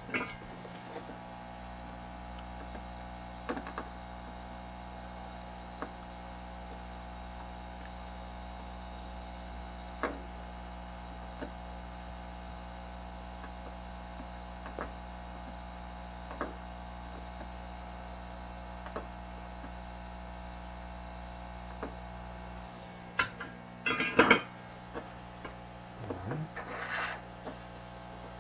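Steady electrical mains hum with scattered faint ticks and taps as small parts are worked on a bench, and a few louder knocks and clatters as the circuit board is handled near the end.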